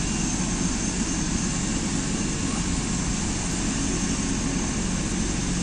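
Helicopter on the ground just after landing, its turbine engine and rotor running steadily: a constant high whine over an unbroken low rush.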